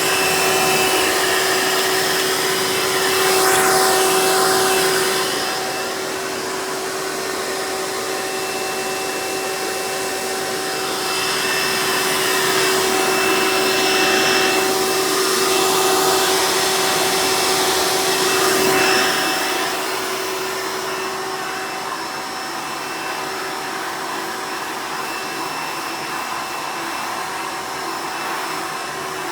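Hoover Elite upright vacuum's direct-air motor running in tool mode with the hose on, giving a steady whine over a rush of air. The air noise swells louder a few times, then settles quieter for the last third.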